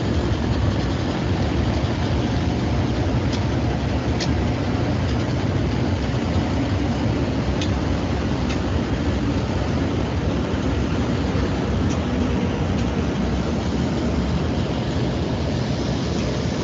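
Hot-mix asphalt plant machinery running: a steady, loud low rumble and hum of the drum mixer, conveyors and motors, with a few faint clicks.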